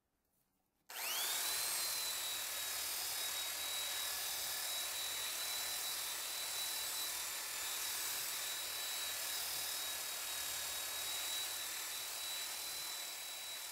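Porter-Cable belt sander switched on about a second in, its whine rising quickly to a steady high pitch, then running steadily while lightly sanding a rough-sawn oak post.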